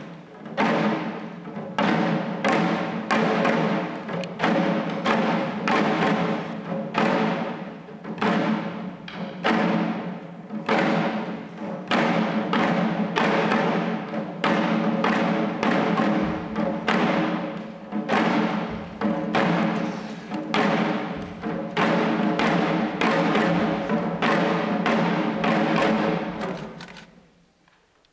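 Shishi-odori deer dancers beating the drums slung at their waists, a steady beat of about two strikes a second over a steady pitched sound. The drumming fades out about a second before the end.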